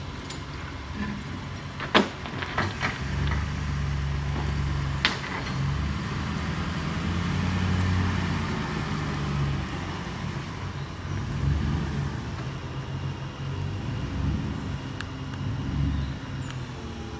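Ford F-150 pickup driving slowly up to and into the garage, its engine and tyres making an uneven low rumble. Two sharp clicks come about two and five seconds in.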